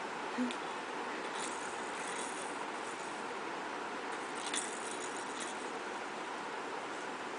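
Plastic baby rattles and toys clicking and rattling lightly as they are handled, most clearly about a second and a half in and again about four and a half seconds in, over a steady hiss. A short low bump just after the start.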